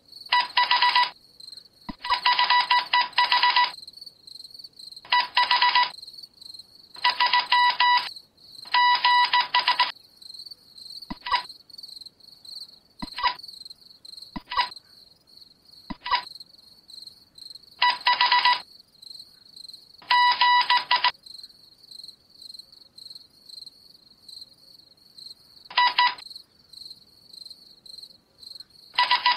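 Buzzing electronic tone sounding in irregular bursts, some brief and some lasting a second or two, over a steady, high, pulsing chirp.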